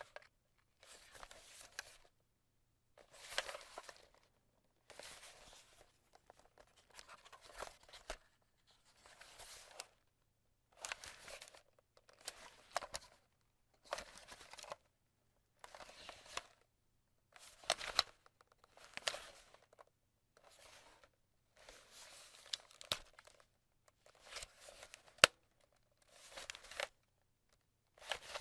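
A camera being grabbed and held in the hand, again and again: short rustling, scraping handling sounds about a second each, separated by brief silences, some with a sharp click of the body or strap.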